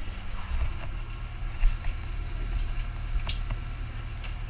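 Dive boat's engine running with a steady low drone, with a few sharp clicks and knocks of gear on deck, the clearest about three seconds in.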